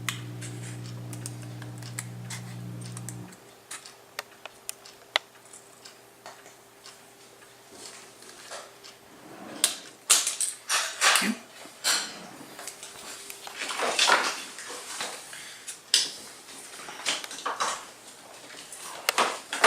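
A plastic credit card being cut to shape: a series of sharp snips and clicks, sparse at first and coming thick and loud from about ten seconds in. A steady low hum runs under the first three seconds and stops abruptly.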